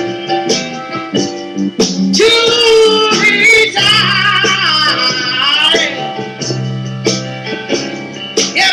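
A song: a woman's voice singing over piano, holding a long wavering note in the middle.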